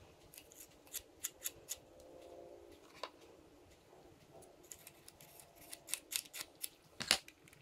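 Faint, sharp clicks and ticks of fingers handling a DJI Mavic Mini drone's plastic arm and body: one run of clicks in the first two seconds and another from about five seconds in.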